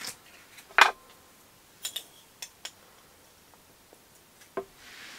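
A jar being opened and a metal spoon tapping and scraping in it: a few separate sharp clicks, the loudest about a second in.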